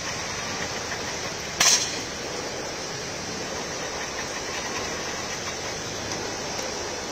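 Heavy rain falling steadily as an even hiss, with one short, louder burst of noise just under two seconds in.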